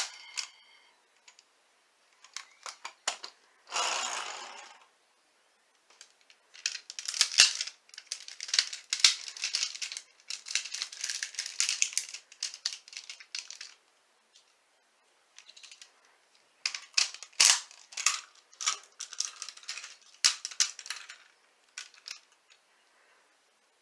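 Hard plastic toy parts clicking, snapping and rattling as a transforming toy vehicle is handled and its pieces are folded into place. The clicks come in quick clusters with short pauses between them, and there is one longer scrape about four seconds in.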